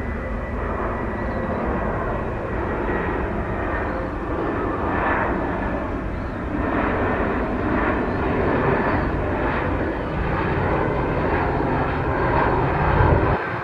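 Jet airliner's engines running loud and steady, a faint high whine over a broad rushing noise and deep rumble. The deep rumble drops away abruptly just before the end.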